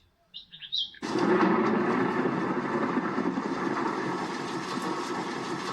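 Nature-sounds recording: a few short bird chirps, then about a second in a loud, steady rushing noise of the outdoors, such as rain or wind in trees, starts suddenly and carries on.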